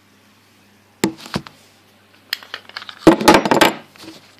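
Clicks and knocks of a Remington 1911 BB pistol being handled: a few separate clicks, then a louder, quick run of clattering clicks about three seconds in.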